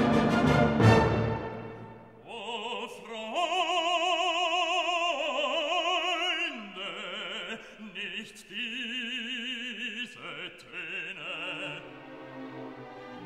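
Background music: a loud orchestral chord dies away in the first second and a half. Then a singer holds long, wide-vibrato notes in operatic style over a quiet accompaniment.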